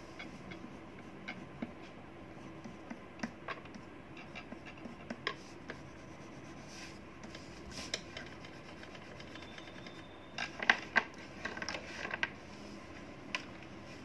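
Paper and art supplies handled on a desk: scattered soft ticks and scratching as a pastel rubs on paper and the sheet is shifted, then a cluster of sharper clacks between about ten and twelve seconds in as small items like a glue stick and pastels are set down.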